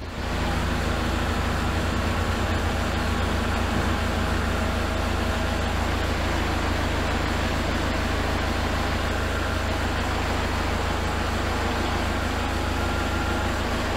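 Kubota L4701 tractor's diesel engine running steadily as its front loader raises a full oil drum on pallet forks.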